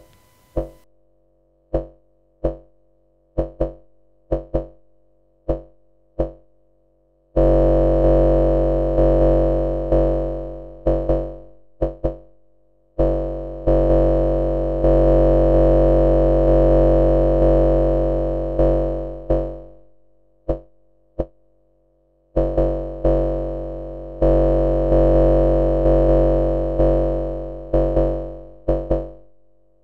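Eurorack modular synthesizer repeating a single-pitch note through an envelope generator and VCA. The note lengths change as control voltage moves the envelope's onset and decay: short plucks at first, long sustained tones from about a quarter of the way in, short plucks again past the middle, then long tones once more.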